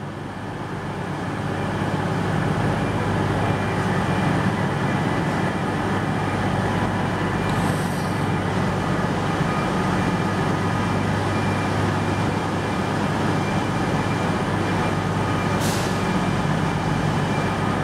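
Class 221 Super Voyager diesel-electric train's underfloor Cummins diesel engines running at the platform, getting louder over the first two seconds and then holding steady, with a low drone. A short hiss comes about three-quarters of the way through.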